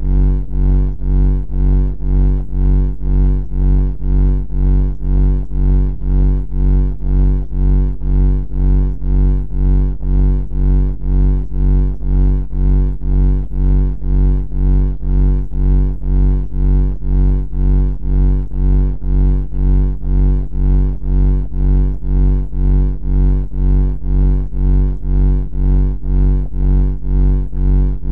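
Loud, low droning buzz on one steady pitch, pulsing evenly about twice a second without change.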